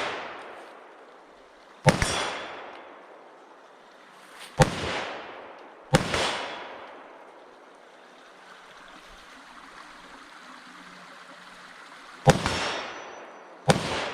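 Five gunshots fired at irregular intervals, each sharp report followed by a trailing echo that dies away over a second or so.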